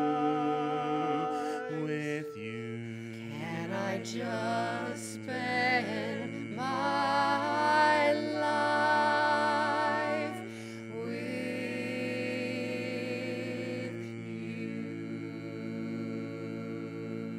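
Mixed barbershop quartet singing a cappella in close four-part harmony through the song's closing tag. The voices are loudest in the middle, then settle into one long held final chord for the last several seconds.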